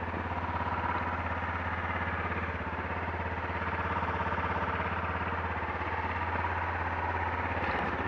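Motorcycle engine idling steadily, a low even rapid pulsing.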